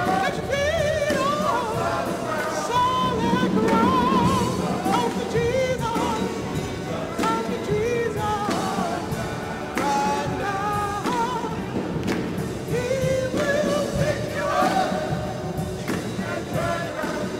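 Church music ministry singing a gospel hymn with piano accompaniment and a steady beat, voices wavering and sustained over the instruments.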